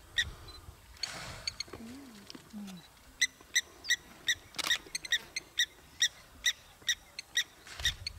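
A bird calling over and over in short, sharp notes, about two a second.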